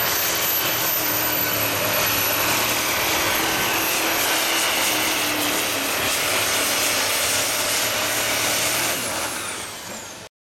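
A pulling-modified diesel pickup engine running flat out under load as it drags a weight-transfer sled, with a steady high turbo whistle over the engine noise. Near the end the whistle falls in pitch and the engine dies down as the throttle comes off, then the sound cuts off abruptly.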